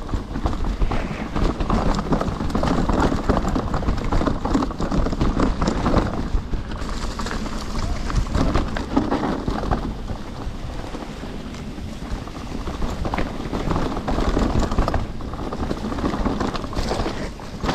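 Trek Slash mountain bike riding down a rough trail: a continuous rumble of tyres over dirt, stones and roots, with a steady clatter of small knocks from the bike, easing off for a few seconds in the middle.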